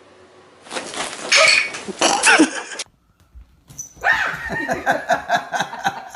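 A dog vocalising in two bursts with a short silent gap between; the second burst is a quick run of short, falling barks or yelps.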